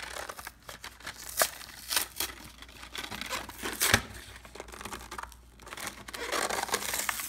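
Cardboard toy packaging being torn and pulled open by hand: tearing and crinkling, broken by several sharp snaps, the loudest about two and four seconds in.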